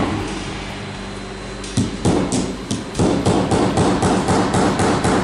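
Hammer striking a steel drift pin to drive a pin into a plastic tabletop conveyor chain: after a short pause, a quick run of light blows, about three to four a second, starting a little under two seconds in.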